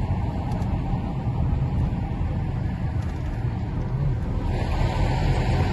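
Car driving along a road: steady low rumble of engine and road noise, with a brighter hiss coming in about four and a half seconds in.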